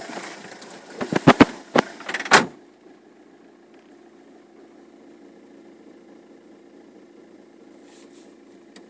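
Volkswagen Caddy engine running with a knock the owner is chasing. Several sharp knocks come between one and two and a half seconds in, ending in a loud slam. After the slam only a faint, steady engine hum is left.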